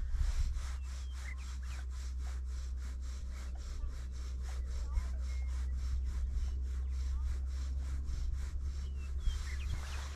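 Fly line being retrieved in quick, even strokes, a rough rubbing swish about three or four times a second, over a steady low rumble.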